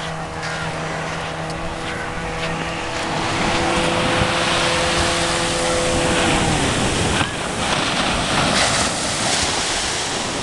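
Small waves breaking on a sandy shore, with wind on the microphone. An engine hums steadily at first, then its pitch drops and it dies away about six to seven seconds in.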